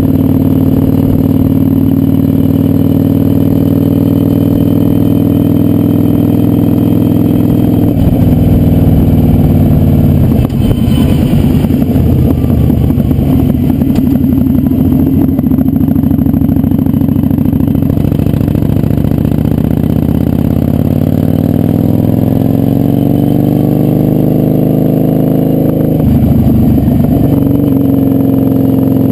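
Kawasaki Vulcan 900's V-twin engine running under way on a ride, its note falling and rising several times as the rider shifts and rolls on and off the throttle through curves.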